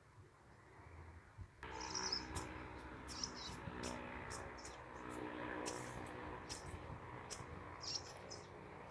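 Birds chirping now and then over the dull knocks and scrapes of a long-handled hand hoe chopping into soft, red garden soil, starting about a second and a half in.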